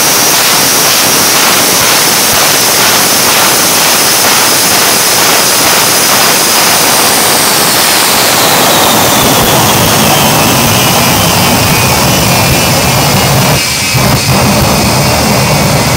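Jet engine of a jet-powered fire truck running hard with flames blasting from its exhaust, a loud continuous roar. A high whistling whine over it slides down in pitch about halfway through, and the deep rumble grows heavier after that.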